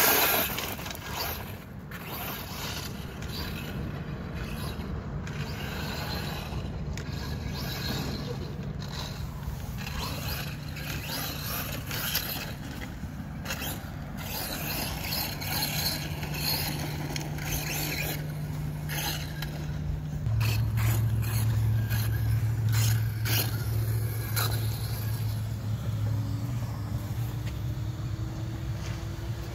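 Brushless-powered Redcat Volcano EPX RC monster truck tearing across loose dirt, its tyres scraping and spraying grit in repeated short bursts as it accelerates, loudest right at the start. A low, steady engine hum from a larger vehicle comes in and grows clearly louder about two-thirds of the way through.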